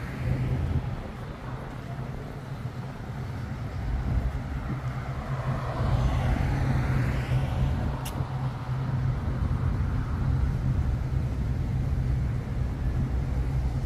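City street traffic: a steady low engine rumble, with a vehicle passing close about halfway through, swelling and then fading. A single short click comes just after it.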